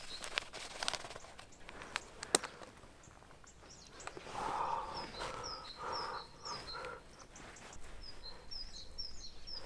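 A songbird singing: two short runs of quick, high, repeated chirps, one about halfway through and one near the end, over faint background with a few scattered clicks.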